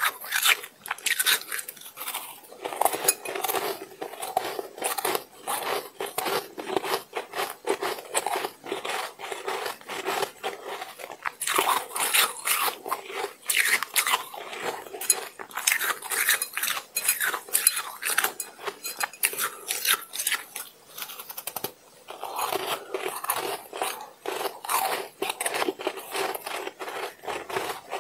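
Mouthfuls of frosty shaved ice being bitten and chewed: a dense, steady run of crisp crunches, with a brief pause about three-quarters of the way through.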